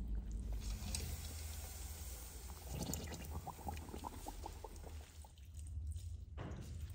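Broth simmering in a large pot, with small bubbling pops over a low steady hum. Near the end, water is poured from a glass jug into a potted plant.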